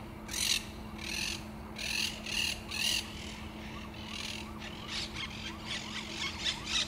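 Harsh, scratchy bird calls, about two a second, then a quicker run of shorter chattering calls from about three seconds in, over a steady low hum.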